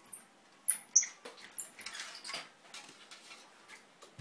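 Wooden parts of a shamisen squeaking and clicking as they are fitted together: a run of short, high squeaks with sharp knocks, thickest in the first couple of seconds, then a few lighter clicks.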